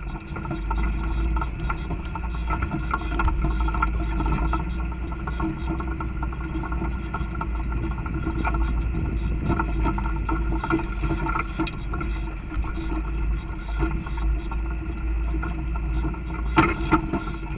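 Four-wheel-drive vehicle crawling over a rocky dirt trail: a steady low engine and tyre rumble with frequent rattles and knocks as it rides over the rocks, and a sharper knock near the end.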